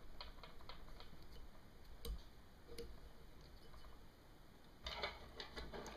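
Faint scattered clicks and rustles from hands tying material onto a fly hook held in a fly-tying vise, with a soft knock about two seconds in and a quick run of clicks near the end.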